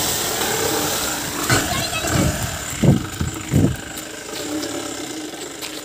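Jeep driving through deep mud puddles on a dirt track: its engine running under load, with mud and water splashing and a few heavy low surges about two to four seconds in.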